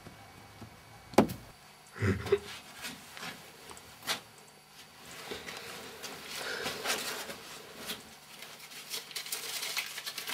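A sharp knock, then a heavier thud and another knock, then several seconds of rustling and scraping with scattered small knocks: someone moving about and handling things in a small cellar.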